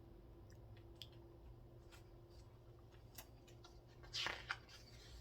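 A few faint clicks over a faint steady hum, then a short paper rustle about four seconds in: a picture-book page being turned.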